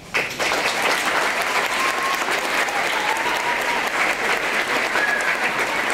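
Audience applauding, breaking out all at once just as the orchestra's final chord has died away at the end of a piece, then carrying on steadily.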